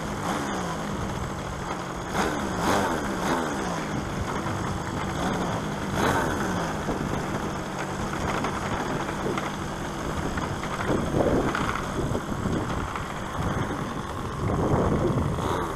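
Two-stroke engine of a model Tiger Moth biplane running at low throttle while it taxis, its pitch wavering up and down.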